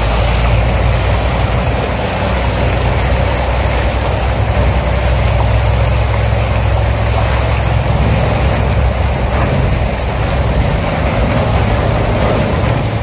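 Sand barge's engine running steadily, a constant low hum under the noise of water churning and rushing along the steel hull.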